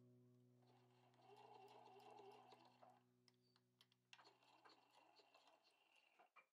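A JUKI HZL-F600 sewing machine stitching faintly in two short runs, each a few seconds long, with a quick patter of stitch clicks. Soft piano music fades out underneath.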